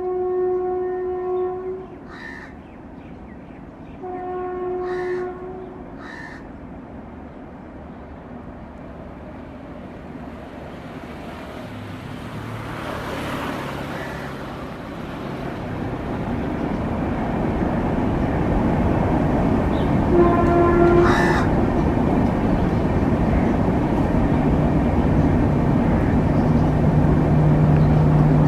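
Crows cawing briefly a few times among three long, steady horn blasts: two near the start and one about two-thirds through. A rumbling noise builds through the second half into a steady low hum.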